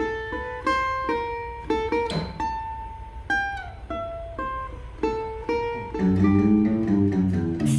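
Choro melody plucked note by note on a cavaquinho. A guitar joins underneath about six seconds in.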